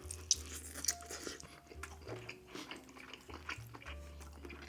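Close-miked chewing of a piece of king crab meat: wet mouth and lip-smacking sounds with many small quick clicks.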